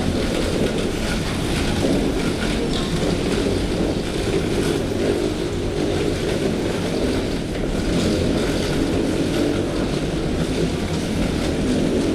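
Steady cabin noise inside a Boeing 737-800: a dense rumble of the jet engines and airflow, heaviest in the low range.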